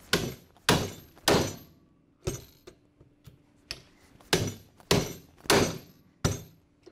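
Hammer striking a five-prong rivet driver to drive Flexco SR rivets through hinged belt-fastener plates into the applicator base: sharp metallic blows, three hard ones about half a second apart, a couple of lighter knocks, then four more hard blows.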